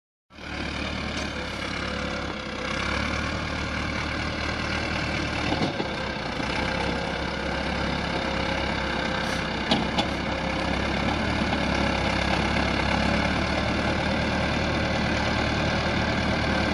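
Massey Ferguson 385 tractor's four-cylinder diesel engine running steadily as the tractor pulls a loaded trolley, getting gradually louder as it comes closer. A couple of sharp clicks about ten seconds in.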